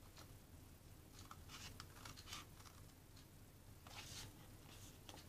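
Scissors snipping through thick sketchbook paper: several short, faint cuts, a cluster about a second in and another about four seconds in.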